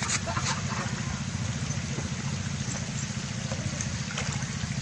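A small motor running steadily in the background with a fast, even pulse, and a few faint clicks.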